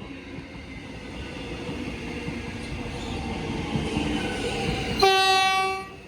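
Metro X'Trapolis electric train running past, its wheel and running noise growing louder, then one blast of about a second on its low-note horn near the end.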